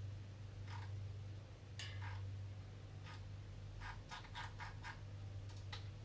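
A few short, light clicks and scratches, with a quick run of about five around the middle, over a steady low hum.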